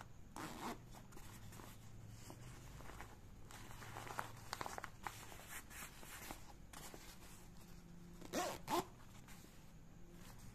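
Zip on a nylon waist bag being worked and the bag handled: faint scratchy rustling with small clicks, then two short, louder zip rasps close together near the end.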